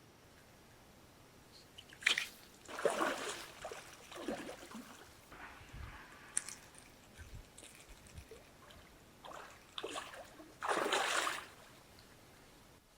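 Water splashing and sloshing in irregular bursts, the two loudest about two to three seconds in and near the end.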